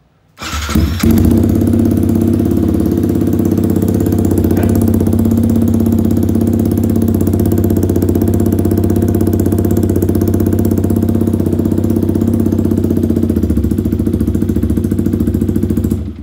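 Yamaha MT-15's 155 cc single-cylinder engine, fitted with an aftermarket exhaust with its dB killer taken out, starting about half a second in and then idling steadily, very loud. It cuts off near the end.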